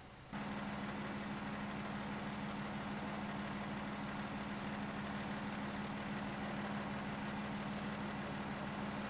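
A vehicle engine idling steadily, a constant low hum that starts suddenly about a third of a second in.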